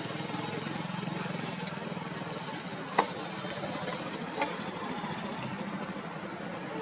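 An engine running steadily at idle, a low even hum, with one sharp click about three seconds in.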